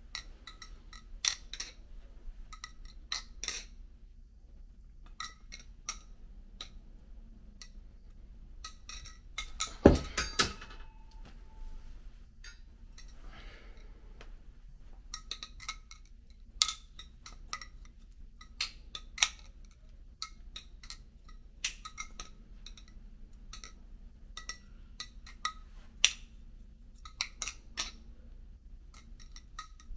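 Serif balisong (butterfly knife) being flipped: irregular metallic clicks and clacks as the handles and blade swing round and strike each other, some with a short ring. About ten seconds in comes one much louder knock.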